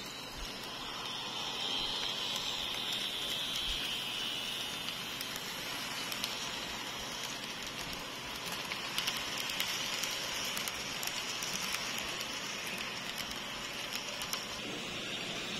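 Model train running past on sectional track: a steady whirring hiss from its motor and wheels, with light clicks as the wheels cross the rail joints.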